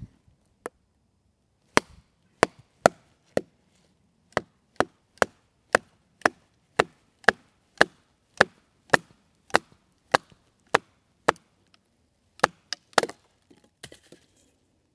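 Batoning: a wooden baton knocks repeatedly on the spine of a Condor Mini Bushlore knife, driving the blade down through a stick of wood. There are about twenty sharp knocks at roughly two a second, with a few more spaced out near the end as the wood splits through.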